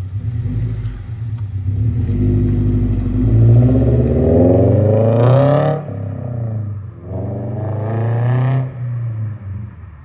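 2022 Toyota GR86's 2.4-litre flat-four, fitted with catless Tomei unequal-length headers and a Remark axle-back, accelerating hard. The revs climb for a few seconds, drop sharply at an upshift a little before the middle, climb again, then fade as the car pulls away.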